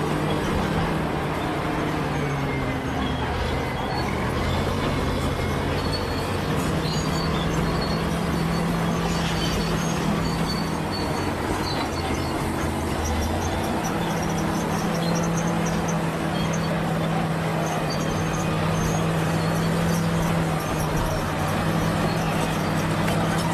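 Bulldozer's diesel engine running under load, its pitch shifting a couple of times as the load changes, over a dense steady clatter with faint high squeaks.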